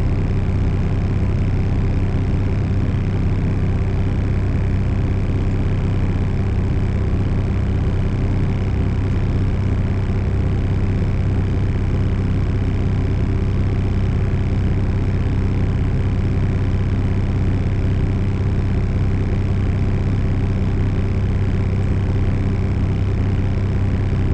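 Diesel truck engine running steadily at an even, unchanging speed: a constant low drone.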